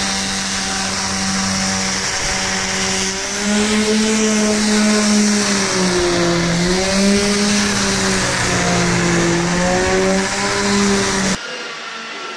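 Electric palm sander running against a fibreglass boat hull, keying the gel coat, with a dust extractor drawing through its hose; the motor's hum wavers up and down in pitch as the sander is pressed and moved. The sound drops suddenly about eleven seconds in, leaving a quieter steady whirr.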